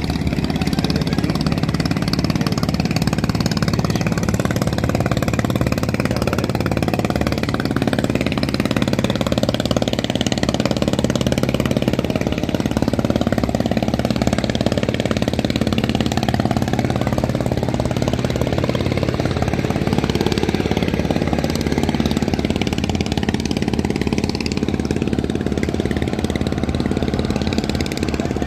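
A boat engine running steadily, with even low tones that hold throughout.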